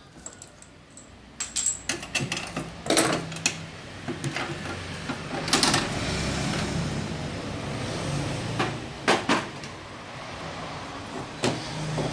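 Knocks, clicks and clatter of metal tools and a case being handled and lifted out of a wooden packing crate, with a short noisy rustle about halfway through.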